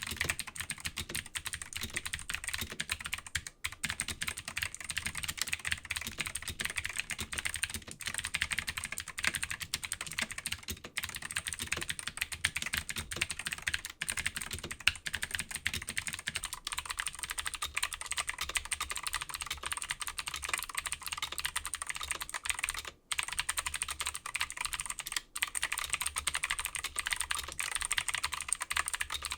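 HyperX Alloy Origins mechanical keyboard with clicky blue switches, typed on quickly and continuously in a dense run of clicks. About halfway through the keyboard is set on a mouse pad, and the low thud under the clicks drops away.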